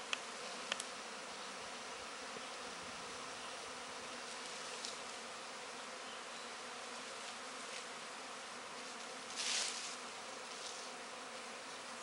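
Honeybee swarm buzzing steadily. Two sharp clicks sound in the first second, and a short, louder rush of noise comes about three-quarters of the way through.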